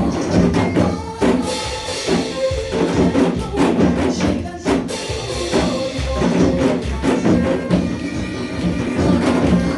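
Several janggu (Korean hourglass drums) beaten in unison over a recorded trot song, the drum strokes falling in a steady rhythm on top of the backing track's melody.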